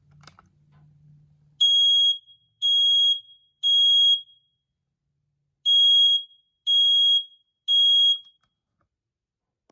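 Smoke alarm under test sounding its high-pitched alarm beep in two groups of three, the temporal-3 evacuation pattern, each beep about half a second long with a pause of about one and a half seconds between the groups.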